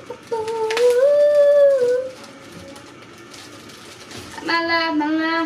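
A girl humming or singing a wordless tune with long held notes: one that rises a little and holds in the first two seconds, then a lower sustained note near the end. A sharp click near the start.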